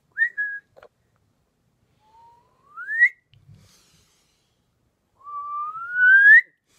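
A person whistling three rising notes: a short high note at the start, a quick upward glide about three seconds in, then a longer, louder upward glide near the end.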